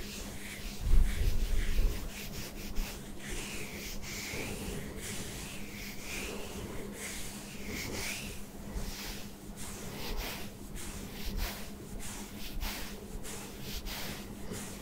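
Hands rubbing and scratching over a short buzz-cut scalp close to the microphone, a run of repeated rasping strokes, with a low thump about a second in.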